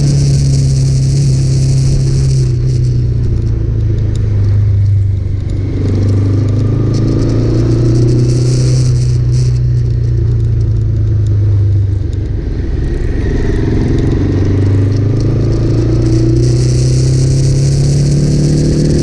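Motorcycle exhaust through a Scorpion aftermarket muffler, the engine running steadily. Its note falls over the first few seconds, holds lower through the middle, then rises again near the end as the revs come back up.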